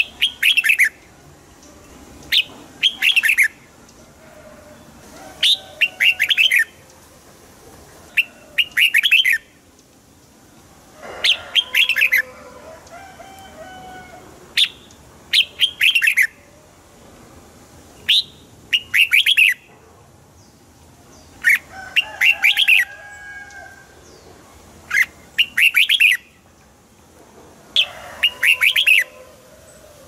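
Red-whiskered bulbul singing: short, bright, warbling phrases of a second or so, repeated about every three seconds. Fainter, lower notes sit beneath some of the phrases.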